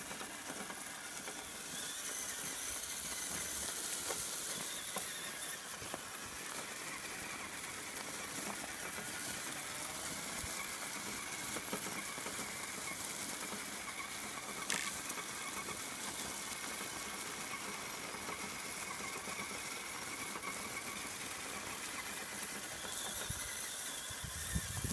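Axial SCX10 RC crawler's electric motor and geartrain whining as it crawls over gravel, the whine coming and going with the throttle, with a few small stone clicks under the tyres.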